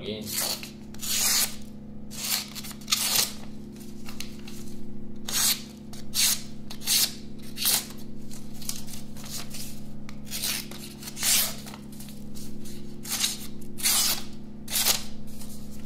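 Ganzo G728 folding knife blade slicing through thin advertising paper: some twenty quick, crisp cutting strokes at an irregular pace, with a short pause early on. The blade goes through cleanly, the sign of a sharp factory edge.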